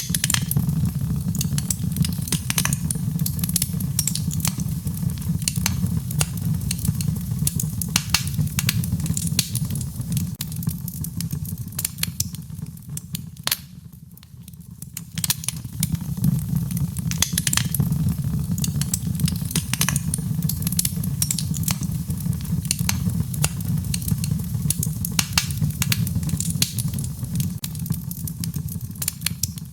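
Wood fire crackling in a fireplace: irregular sharp pops and snaps over a steady low rumble of flames. The fire sound dips briefly about halfway through, then carries on.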